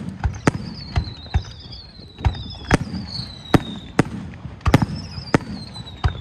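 Aerial firework shells bursting in a rapid, irregular run of sharp bangs, more than a dozen, with high whistles sliding slowly down in pitch between them.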